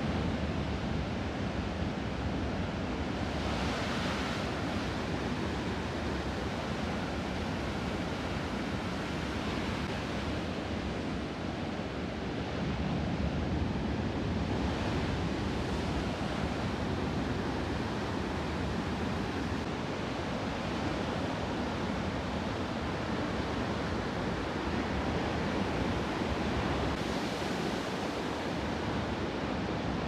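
Ocean surf: a steady rush of waves breaking and washing in, swelling into louder hissing rushes a few times as sets break.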